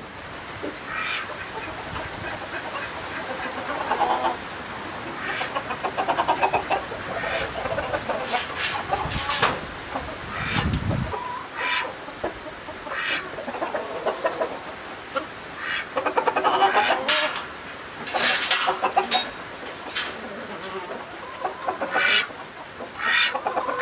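Chickens clucking, a string of short calls one after another, busiest past the middle.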